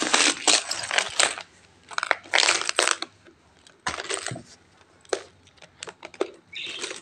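Peso coins rattling and clinking inside a small piggy bank as it is shaken in bursts, a few dropping out at a time because the hole cut in it is small. Long bursts of rattling in the first half, then shorter, scattered clinks.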